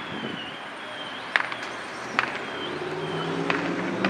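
Vehicle engine running, growing louder over the last second and a half. Sharp pops come every second or so, with a faint repeating high chirp behind them.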